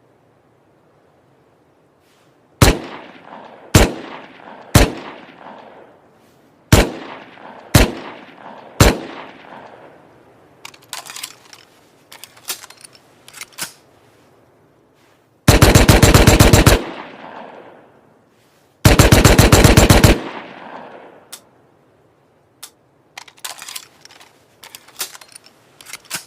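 Thompson submachine gun firing: six single shots, each with an echoing tail, then two full-auto bursts of about a second and a half each. Quieter clicks come between the shots and the bursts and again near the end.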